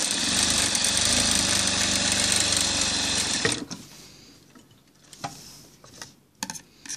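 Industrial single-needle sewing machine running steadily at speed, stitching a second, reinforcing row of stitches, then stopping abruptly about three and a half seconds in. A few light clicks follow as the work is handled at the machine.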